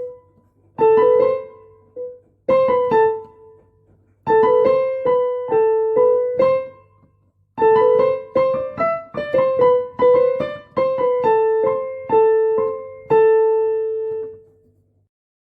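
A simple piano melody played note by note in short phrases with brief pauses between them, ending on a long held note that fades away. A faint steady low hum sits under the playing.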